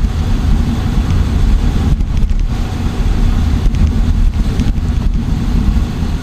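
Wind buffeting the microphone of a camera on a bicycle coasting fast downhill: a loud, steady low rumble.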